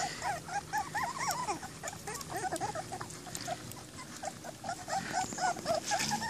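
A litter of four-week-old American pit bull terrier puppies whining, many short high squeals overlapping in quick succession. They thin out about halfway through and pick up again near the end.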